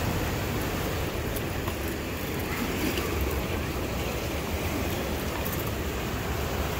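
Steady rush of surf on a rocky shore, mixed with wind noise on the microphone that gives a low rumble, and a few faint clicks.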